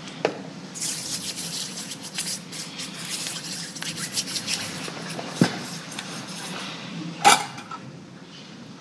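Rustling and rubbing from hands working at the altar, with a few light clicks, then one sharp knock or clink about seven seconds in.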